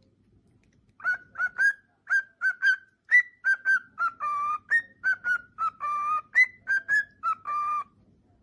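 Male cockatiel whistling its song. A quick run of about twenty short, clear whistle notes starts about a second in, broken by three longer, lower held notes.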